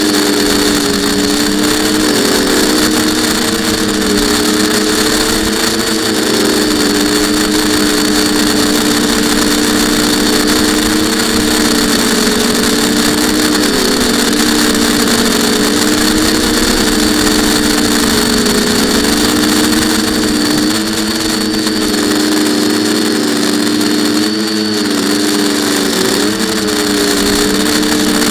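Quadcopter electric motors and propellers running in flight, heard close up from a camera mounted on the frame: a steady hum of several tones that waver up and down as the throttle changes, with a thin high whine over a rush of propeller wash and wind.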